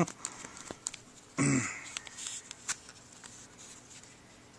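Faint clicks and rustling from hands handling a Zippo lighter in its box, with a short vocal grunt about a second and a half in.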